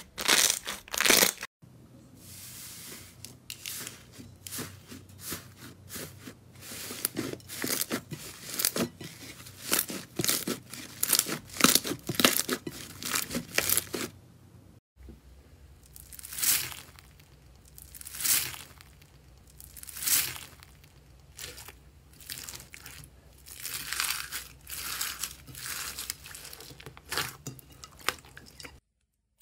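Slime being pressed and squeezed by hands: dense quick crackling pops and sticky tearing sounds, with slower squelching presses about every two seconds in the later part. Two brief dropouts mark cuts between different slimes.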